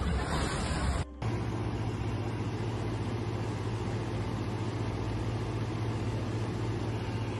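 About a second of rushing, splashing water as a vehicle pushes through floodwater, then an abrupt cut to an engine running at a steady low hum over the noise of water.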